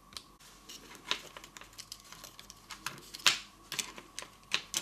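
Irregular small plastic clicks and rattles of a quartz clock movement being handled, its plastic gears and casing pressed and pried by fingers; the loudest click comes about three seconds in.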